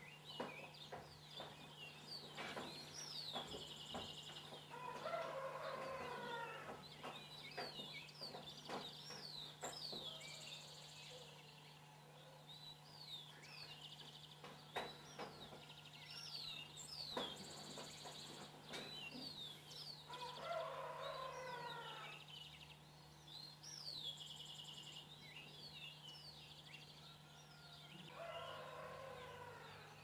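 A rooster crowing three times, each crow about a second and a half long, over a dawn chorus of small songbirds giving many quick, high, falling chirps. A steady low hum runs underneath.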